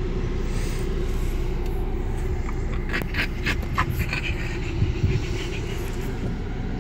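French bulldog panting, with a run of quick breaths about halfway through, over the steady low rumble of the car cabin.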